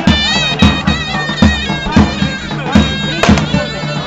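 Live Turkish folk music: a zurna plays a shrill, ornamented melody over heavy davul drum beats that come at an uneven pace, the traditional accompaniment to the sinsin bonfire dance.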